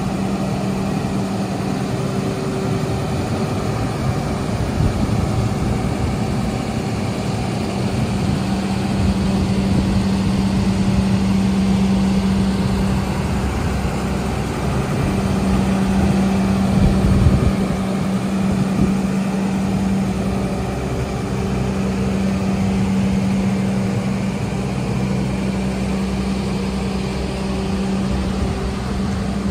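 DAF LF55 skip loader truck's diesel engine idling steadily with a constant low hum, swelling briefly a little past halfway.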